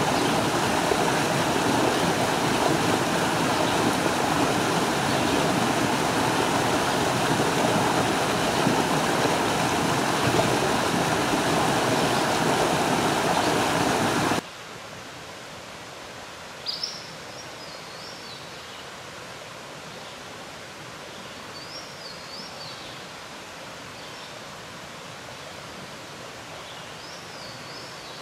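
Small forest stream rushing steadily over rocks and a low cascade. About halfway through it cuts off abruptly to quieter woods, where a songbird sings a short phrase three times, about five seconds apart.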